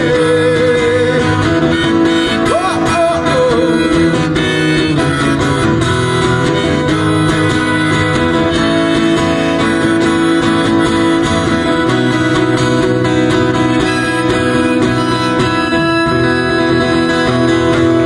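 Acoustic guitar strummed live through small PA speakers, with a lead melody line carried over it and no words sung.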